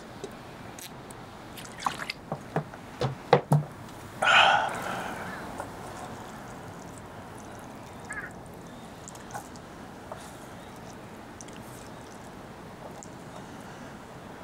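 Drinking water from a plastic bottle: several sharp gulping clicks about two to three and a half seconds in, then a louder short burst of noise about four seconds in that fades away. After that only a few faint soft eating ticks.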